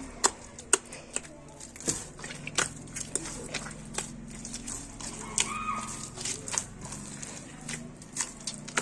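Hands kneading wet, sticky dough in a bowl, making irregular sharp wet slaps and clicks as water is worked in.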